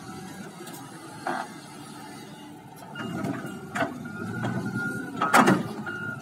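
Diesel engine of a wheel loader with a log grapple running under load, with sharp knocks of the grapple and logs striking each other, the loudest a little past five seconds in. Over the second half a short beep repeats about twice a second.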